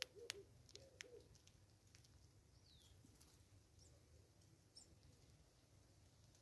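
Faint dove cooing: a run of soft, arched, low notes in the first second, quieter again near the end. A few sharp clicks come in the first second, one single falling whistle from another bird near the middle, and two brief high chirps.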